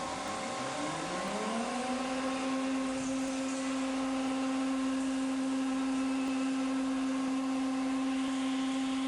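An electric motor on a CNC router setup starting up: its hum rises in pitch over about two seconds, then runs steadily at full speed over a continuing machine drone.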